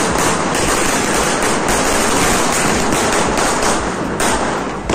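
Spark-spraying ground firework burning: a loud continuous hiss full of fast crackling, which cuts off sharply near the end.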